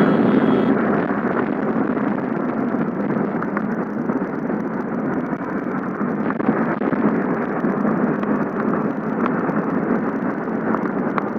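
Wind rushing over a helmet-mounted microphone on a Yamaha sport motorcycle ridden at speed, with the bike's running and road noise underneath. The noise is steady and dense, without a clear engine note.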